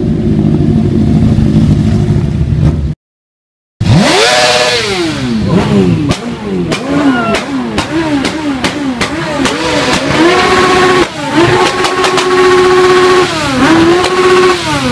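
An old Suzuki motorcycle's engine being revved hard, its pitch climbing and falling again and again, then held high for a few seconds before dropping back, with scattered sharp cracks. Before a brief cut to silence about three seconds in, there is a low engine rumble.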